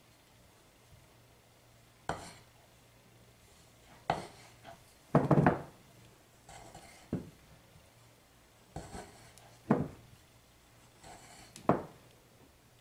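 Wooden spoon knocking and scraping against a glass mixing bowl as stiff marshmallow fondant is worked by hand, about six separate knocks, the loudest about five seconds in. The dough is at its last, hardest stage of mixing before being turned out.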